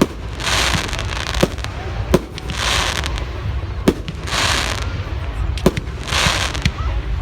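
Fireworks going off: a run of sharp bangs about once a second, with a bout of hissing crackle every couple of seconds.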